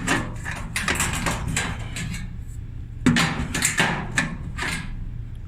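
Metal tool scraping and tapping against sheet metal inside a dryer cabinet, two runs of quick scrapes and clicks with a short pause between, while fishing out loose coins stuck in a corner.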